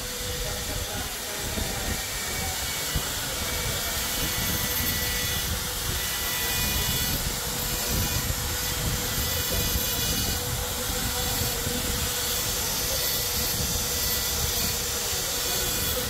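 Steady hiss and drone of construction machinery, including a pneumatic air-powered carving tool working a stone pillar, with a thin high whine over the noise.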